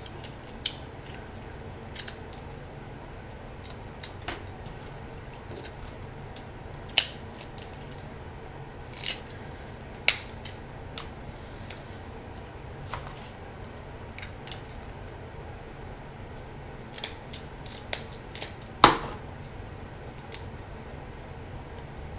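Snow crab shells being cracked and snapped apart by hand: sharp, crisp cracks at irregular intervals, with a quick cluster of them and the loudest crack near the end.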